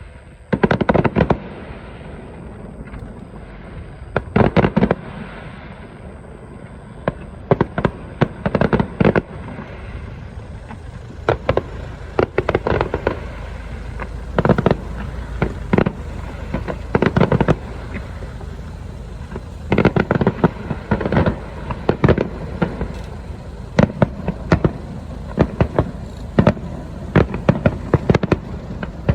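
Aerial fireworks shells bursting in rapid clusters, sharp booms with crackle after them, over a steady low rumble. The bursts come thicker in the second half.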